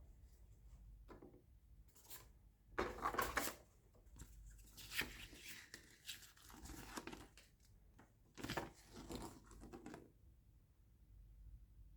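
Packaging being handled and unwrapped, rustling and tearing in several short bursts, the clearest about 3, 5 to 7 and 9 seconds in.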